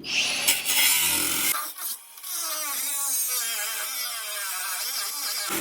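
Cordless angle grinder cutting steel, its pitch wavering under load. It cuts out abruptly near the end as its battery goes flat.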